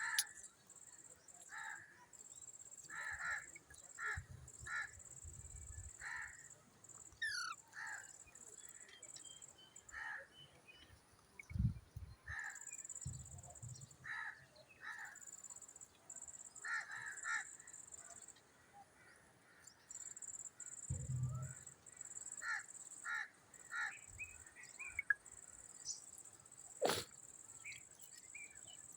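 Rose-ringed (ringneck) parakeet giving short, harsh calls, repeated irregularly, over a steady high hiss that breaks off now and then. A couple of dull thumps and one sharp click near the end.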